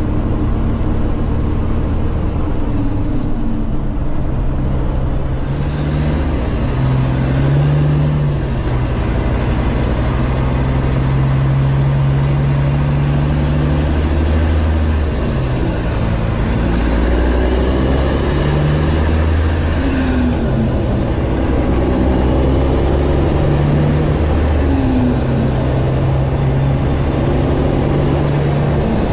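Semi-truck's diesel engine running under load while pulling a loaded trailer, its pitch stepping up and down several times through gear changes. A faint high whine rises and falls over it.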